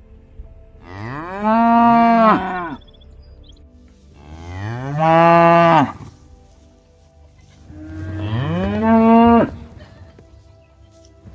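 Cattle mooing: three long, loud moos a few seconds apart, each rising in pitch, holding, then dropping away.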